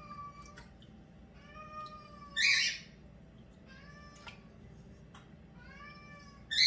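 A pet cat meowing repeatedly: drawn-out meows about every two seconds, each sliding a little down in pitch. Two short, loud, harsh bursts come about two and a half seconds in and right at the end.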